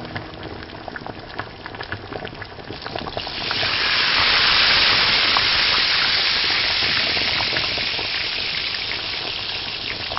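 Boondi batter dropped through a perforated ladle into hot oil in a miniature kadai, frying. Light crackling at first, then about three seconds in a loud sizzle as the drops hit the oil, easing off slowly.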